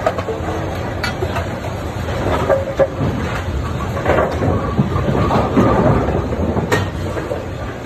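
Brunswick A-2 bowling pinsetters running: a steady mechanical rumble with irregular knocks and clatter of pins and metal parts.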